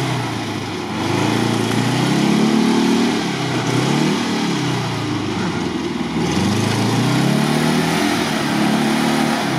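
ZAZ-968M Zaporozhets's small air-cooled V4 engine revving up and easing off about three times, working under load to drive the car out of deep mud.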